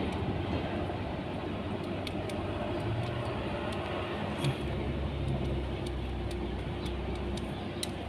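Steady hum of a motor vehicle engine running nearby, with a deeper rumble for a few seconds in the middle and a few faint clicks.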